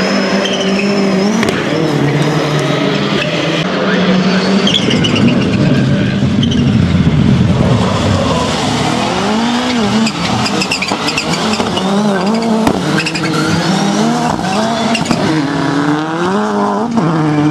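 Rallycross cars racing hard, engines revving up and down again and again through the corners and gear changes, with a few sharp pops between the revs.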